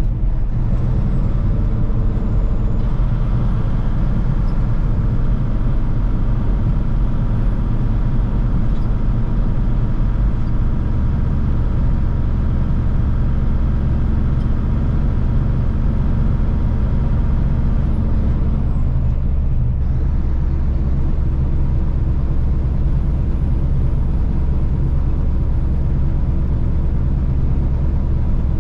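Semi truck's diesel engine and road noise heard from inside the cab while driving at highway speed, a steady low drone. About eleven seconds in, the engine note steps up to a higher pitch and holds there.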